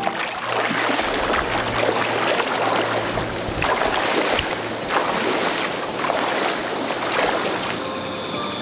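Footsteps wading through shallow swamp water, with a splash and slosh at each step.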